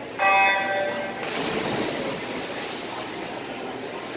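Electronic swim-start signal: one loud beep about a second long. It is followed by a steady rush of splashing water as the swimmers dive in and start swimming.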